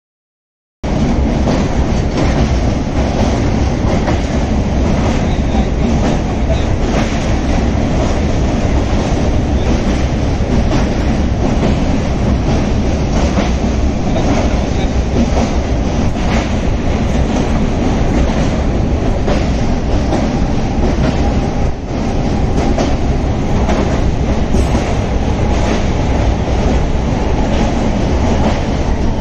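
Passenger train running across a river girder bridge, heard from inside the coach: a steady, loud rumble and rattle of wheels on the rails with faint rail-joint clicks. It cuts in suddenly about a second in.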